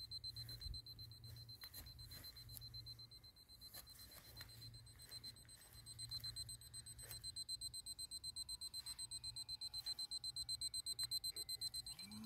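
Radio-control transmitter's flight timer alarm beeping, a faint high-pitched rapid beep at about four beeps a second, signalling that the set three-minute flight time is up.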